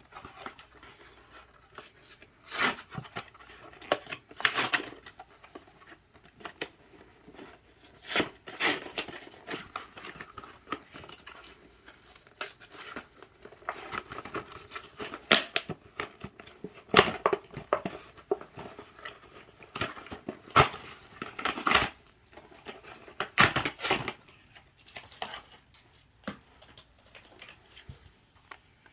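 Irregular clicks, knocks and crinkling handling noise as a plastic ribbon cartridge is worked into place in a Smith-Corona Coronamatic typewriter that is switched off.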